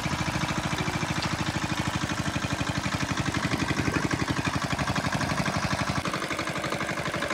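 Small engine of a water pump running steadily with an even, rapid beat of about ten a second.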